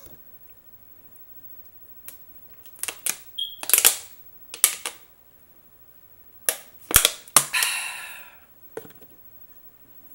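Irregular sharp clicks and knocks in two clusters, one about two to five seconds in and one about six and a half to eight and a half seconds in, with a brief squeak about three and a half seconds in.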